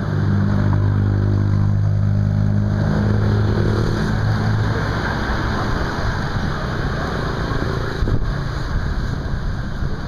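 Motor-vehicle engine running on the road alongside, a steady low hum that fades away after about five seconds, over general street traffic noise. A single sharp knock comes about eight seconds in.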